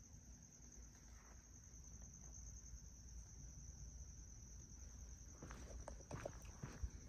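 Faint steady high-pitched insect chirring. Footsteps on a paved path start about five and a half seconds in.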